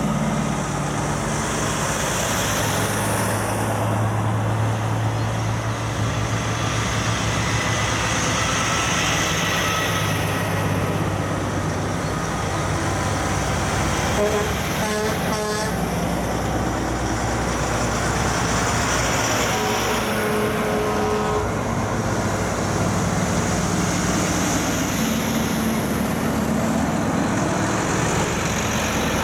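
Heavy diesel trucks passing one after another at low speed, engines running with a steady low rumble over tyre noise. A truck horn sounds about halfway through, and again a few seconds later for about two seconds.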